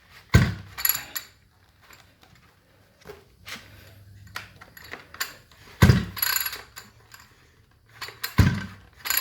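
Recoil pull-starter of a 65 cc multi-tool engine yanked three times, each pull a sudden clunk and rattle that stops short: the flywheel is stuck and won't rotate through, so the engine doesn't turn over or start.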